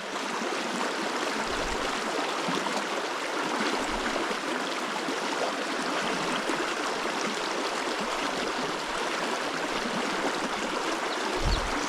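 Small river running over rocks: a steady rush of flowing water.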